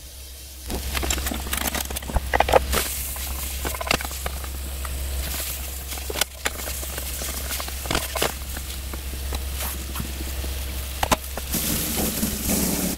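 Sliced kabocha pumpkin and onion frying in a nonstick pan: a steady sizzle and crackle, with repeated scrapes and taps of a spatula as the vegetables are stirred, over a steady low hum.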